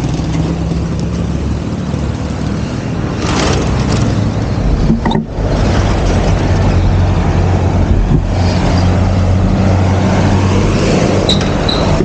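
Motor vehicle engine running steadily with road noise; about five seconds in the sound dips briefly, then the engine runs louder and deeper.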